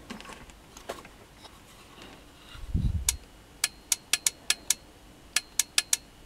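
Handling noise and a low thump, then a run of a dozen or so sharp clicks in quick, irregular groups as the push-to-talk on a handheld speaker-microphone is keyed over and over.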